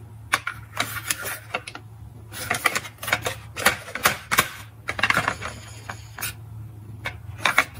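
Plastic toy dump truck being handled up close: irregular sharp plastic clicks and clatters as its tipping bed and wheels are moved, over a low steady hum.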